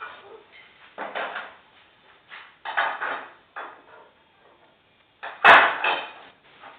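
Irregular knocks and clunks of parts or tools being handled and set down, with one sharp loud bang about five and a half seconds in.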